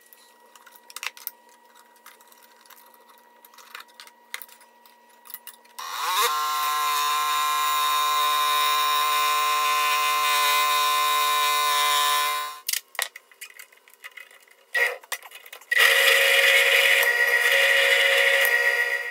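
A Skil scroll saw starts with a rising whine, runs steadily cutting wood for about six seconds, then stops. After a few light handling knocks, a Skil drill press runs louder, boring into a wooden board until near the end.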